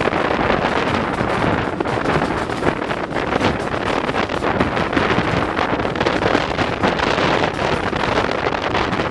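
Heavy wind buffeting the microphone at an open window of a moving train's carriage. The train's running noise is mixed in underneath, but the wind drowns out the locomotive.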